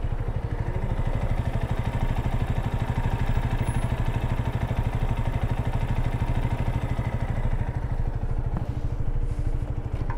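Romet Chart 125 motorcycle's single-cylinder four-stroke engine idling steadily with an even, rapid beat.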